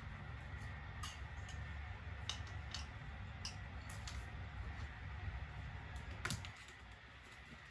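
Scattered light clicks and taps, as of small objects being handled, over a steady low hum that drops away with a louder click about six seconds in. A faint steady high tone runs underneath.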